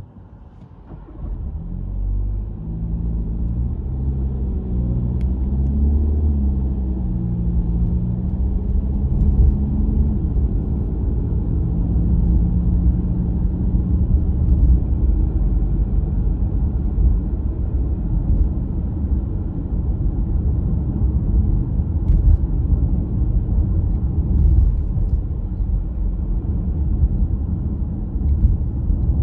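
Car driving: about a second in the engine note comes up and rises and falls in pitch through the next several seconds as it pulls away. It then settles into a steady low rumble of engine and road noise.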